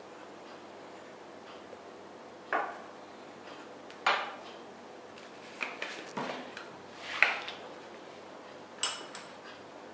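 Laboratory glassware and small tools clinking and being set down on a glass-topped bench: about half a dozen separate sharp clinks and knocks, irregularly spaced.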